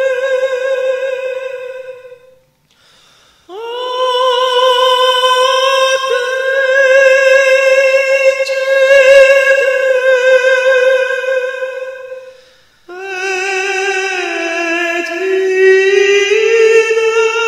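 A solo high voice singing a lament in long held notes with vibrato. There is a brief break about two and a half seconds in, then one note held for about nine seconds, then a lower phrase that dips and rises near the end.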